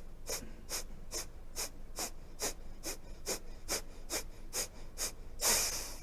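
Forceful nasal exhalations through alternating nostrils in the yogic breathing exercise Virechan Gati: short, sharp puffs about two a second. Near the end comes one longer, louder full exhalation.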